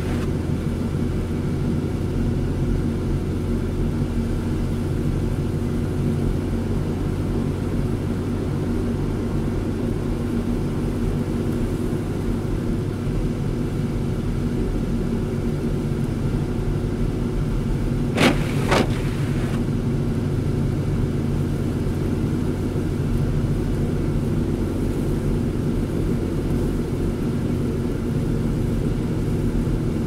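Steady low noise of a car's engine and tyres on a snow-covered road, heard from inside the cabin. About eighteen seconds in, the windshield wipers make one sweep, giving two short knocks close together.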